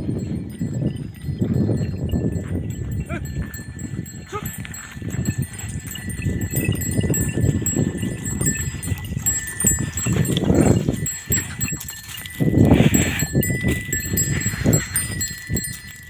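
A pair of Deoni bullocks working a plough, with bells on their necks ringing thinly and steadily over a low, uneven rumbling noise that swells and fades.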